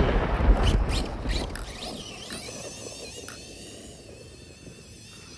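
Brushless electric motor of a radio-controlled truck running on a 3-cell LiPo: a thin, high whine that wavers in pitch as the throttle changes. It follows a loud rush of noise that fades over the first second or two.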